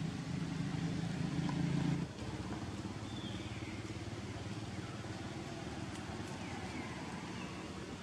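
Steady low hum of an engine running in the background, which drops in level and changes about two seconds in. Faint high chirps come and go over it.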